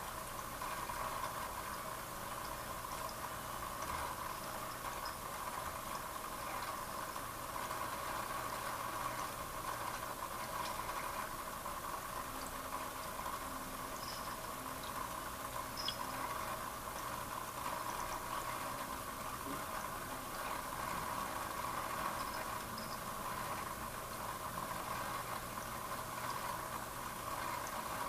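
Aquarium filtration running steadily: a constant hum with bubbling, trickling water.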